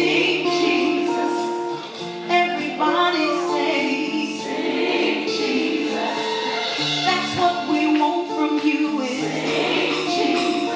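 Gospel music: a choir singing sustained notes over instrumental accompaniment.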